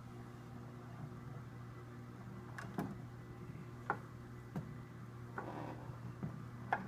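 A handful of light clicks and knocks as a small box fan is handled and turned around, over a steady low electrical hum.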